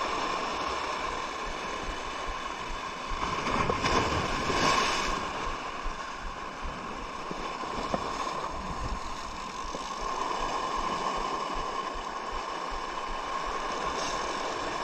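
Penn Fierce 6000 spinning reel being wound with a mechanical whirr while a hooked barramundi pulls on the line, over wind and moving water. Briefly louder about four seconds in.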